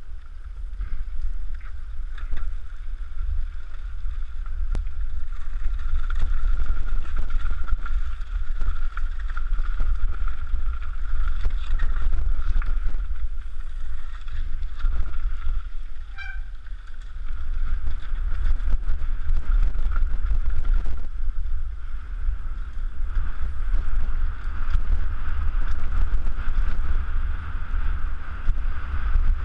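Wind rumbling on a helmet-mounted camera's microphone while riding a mountain bike fast down a dirt forest trail, with frequent knocks and rattles from the bike over bumps.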